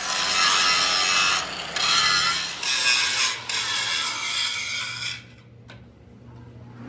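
Harsh rasping of metal being sawn or filed, in several long strokes with short breaks between them, stopping abruptly about five seconds in.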